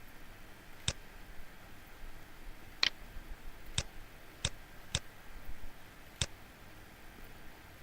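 Computer mouse button clicking, six short sharp clicks at irregular intervals over a faint steady hiss.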